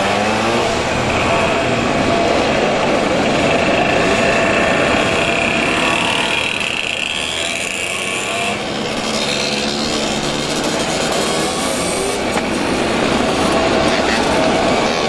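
Mopeds and small motorcycles riding past one after another, several engines running at once, each rising and falling in pitch as it revs and moves off.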